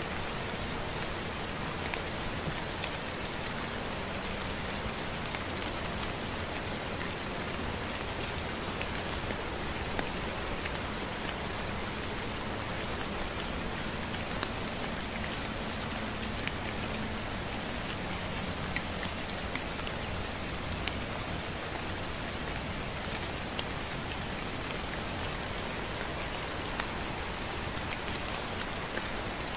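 Gentle rain falling steadily, with scattered drops ticking close by.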